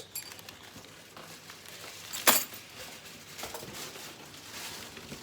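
Items being handled while unpacking a chainsaw box: faint rustling of packaging with one sharp click or knock a little over two seconds in, and a couple of lighter taps later.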